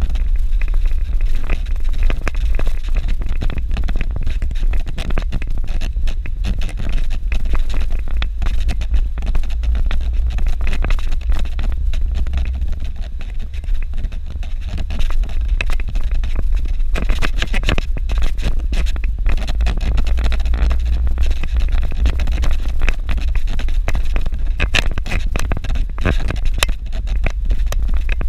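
Car driving on a rough dirt road: a steady low rumble from the engine and tyres, with frequent small knocks, rattles and scrapes from the bumpy surface.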